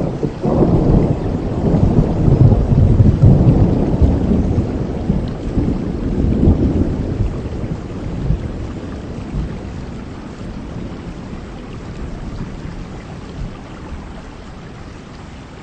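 Heavy rain falling steadily under a long rolling thunder rumble, deep and loudest in the first few seconds, then fading away slowly.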